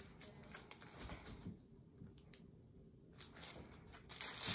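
Faint handling rustles and clicks, then a plastic bag crinkling from about three seconds in, growing louder as a knife is worked out of its plastic wrapping.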